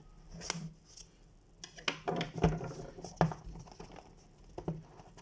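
Hands handling a cardboard phone box and its paper packaging: irregular taps, clicks and short scrapes, with a brief rustle about two seconds in.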